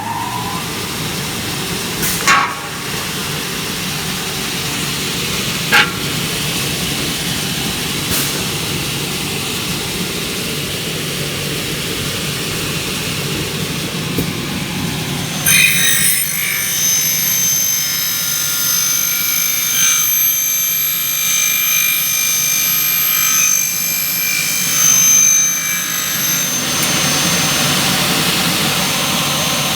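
Kingmac K20 double-head aluminium cutting saw running with its blade motors spinning, with two sharp clicks early on. About halfway through, the circular saw blades cut through an aluminium window profile, dry without coolant, with a high ringing screech that stops about four seconds before the end while the motors keep running.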